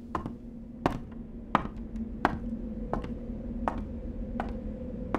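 A woman's footsteps pacing back and forth, slow and even, about three steps every two seconds, over a steady low hum.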